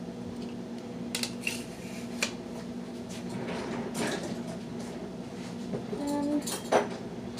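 Kitchen items being handled on a counter: a few scattered clinks and knocks of dishes and utensils over a steady low hum.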